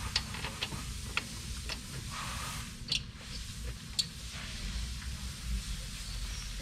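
A handful of sharp, separate metallic clicks and clinks as the two caliper bracket bolts are fitted to the rear brake knuckle by hand and tool, over a low steady hum.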